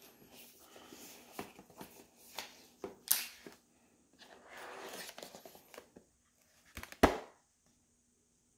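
Clear plastic film being peeled and crinkled off a cardboard box, with irregular crackling and tearing, then a sharp knock about seven seconds in, the loudest sound, as the box lid is opened.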